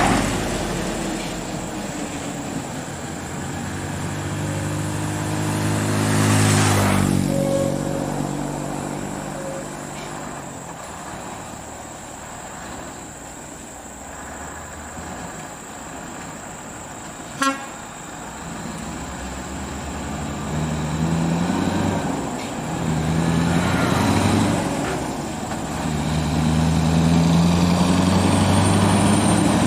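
Scania R580's V8 diesel engine pulling a heavy load, its pitch climbing in steps as the truck works up through the gears. A single very short horn toot about halfway through.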